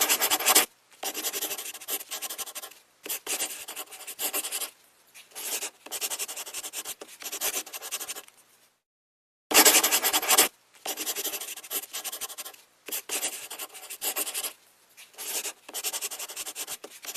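A drawing tool scratching on paper in repeated strokes, each about a second long with short pauses between them, as a picture is drawn and coloured in. The sound stops completely for under a second about halfway through.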